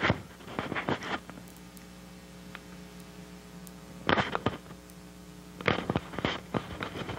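A steady low electrical hum, broken by three short clusters of clicks and knocks: one at the start, one about four seconds in and one about six seconds in.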